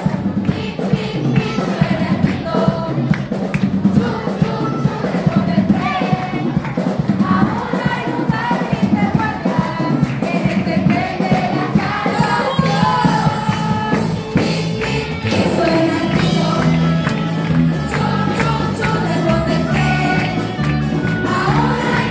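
Upbeat Christian children's song playing loudly with a steady beat, a crowd of children singing along and clapping.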